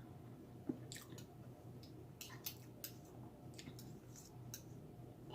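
Faint chewing of pancakes: soft wet mouth clicks and squishes, scattered irregularly over a low hum.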